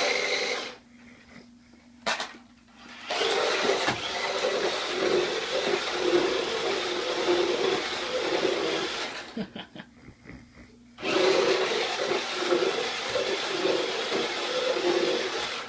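Toy remote-control car's small electric motor and gears whirring as it is driven in spurts: a short burst at the start, a brief one about two seconds in, then two long runs of several seconds each with a pause of about two seconds between them.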